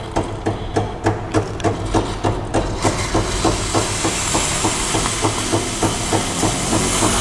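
Gemilai CRM3018 thermoblock espresso machine steaming: a rhythmic knocking pulse about three times a second, with the hiss of steam from the wand setting in about three seconds in and building.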